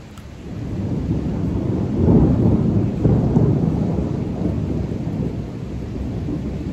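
A long roll of thunder during a rainstorm: a low rumble that swells from about half a second in, is loudest around two to three seconds in, then slowly dies down over steady rain.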